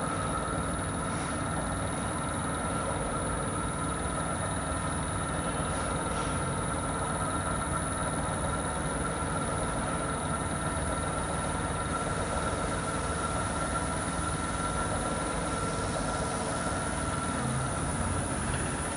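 Electric motor driving a worm gear screw jack, running steadily with a constant whine as the lifting screw retracts into the gearbox housing.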